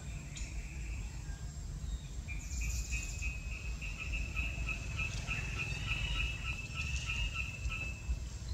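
An insect's high, steady trill that starts about two seconds in and stops near the end, over a constant low rumble.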